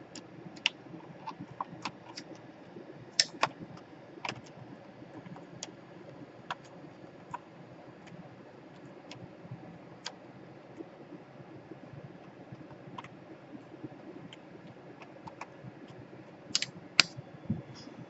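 Irregular light clicks and taps of small plastic laptop casing parts and tools being handled, a few at a time with gaps between, with a louder cluster of clicks near the end.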